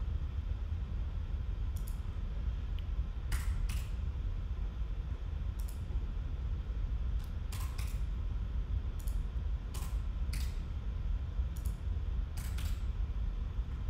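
Scattered clicks of computer keys and mouse buttons, about ten, irregularly spaced and some in quick pairs, over a steady low background hum.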